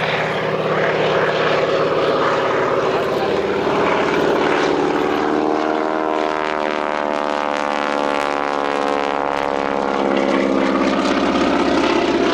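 Grumman G-164 Ag-Cat biplane flying past, its radial engine and propeller running steadily. The engine's pitch rises and then falls back about halfway through.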